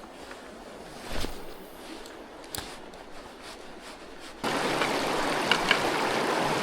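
Mountain stream running, a steady rush of water with a couple of soft knocks; about four and a half seconds in, the rushing water suddenly gets much louder.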